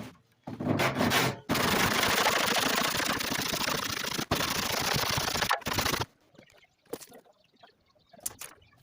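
A power tool working wood, running loud and rattling for about five seconds with a short break about a second in, then stopping.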